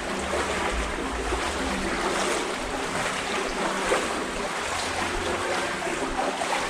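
Wading through thigh-deep water in a tunnel: a steady sloshing and swishing of water around the legs with each stride.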